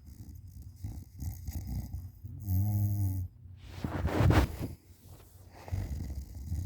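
A person snoring in deep sleep, lying on their back with mouth open: a rattling snore that turns into a low droning tone, then a loud breathy gust about four seconds in, and another rattling snore near the end.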